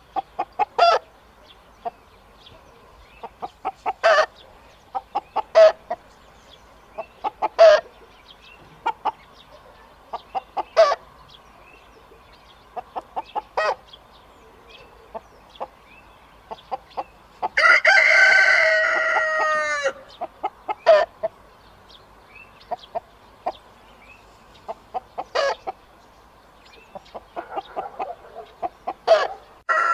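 Chickens clucking in short, scattered calls. About two-thirds of the way through, a rooster crows once, a call lasting about two seconds that drops away at the end.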